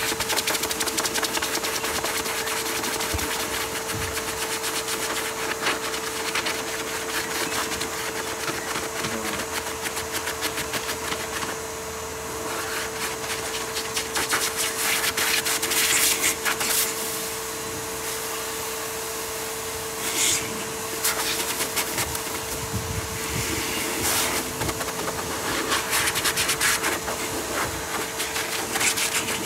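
Electric dog-grooming machine running steadily: a motor hum on one steady note over a hiss, with louder noisy stretches as it works through the Pomeranian's coat.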